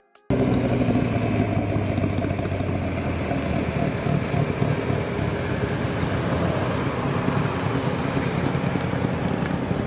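A car driven hard through an autocross cone course, its engine and tyres heard from the side of the course. The sound starts abruptly just after the start and stays loud, with the engine note changing about three seconds in.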